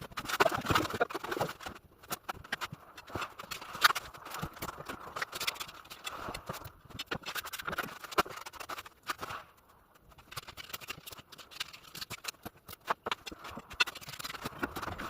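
Irregular knocking, tapping and scraping of tile work: ceramic tiles and tools being knocked and set in place.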